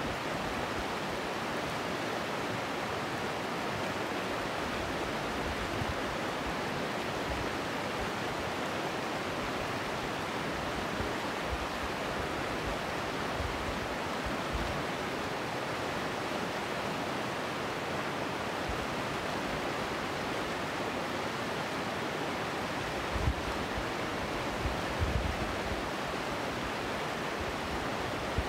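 Shallow, fast-flowing river rushing over rocks: a steady wash of water noise. A couple of brief low thumps near the end.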